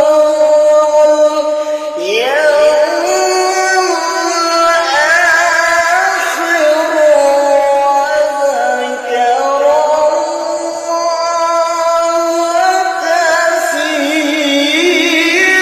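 A qari's melodic Quran recitation in qiroah style: a solo voice holds long, ornamented notes with a wavering vibrato, sweeping up in pitch about two seconds in.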